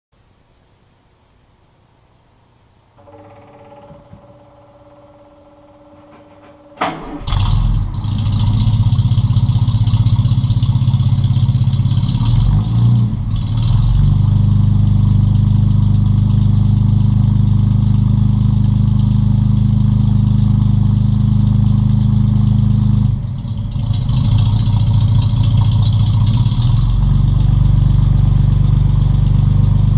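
Austin A90 Six's 2.6-litre BMC C-Series straight-six exhaust, heard at the twin tailpipes. The engine catches about seven seconds in and then runs steadily with a deep note, dipping briefly twice.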